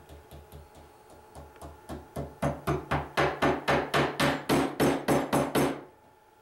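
Claw hammer tapping a small metal bracket into a plywood tabletop, about four strikes a second: light taps at first, then from about two seconds in much harder blows, stopping shortly before the end.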